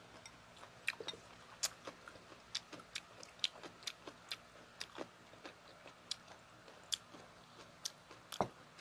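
Close-miked chewing of grilled isaw (chicken intestine): quiet, irregular wet mouth clicks and smacks, a couple a second.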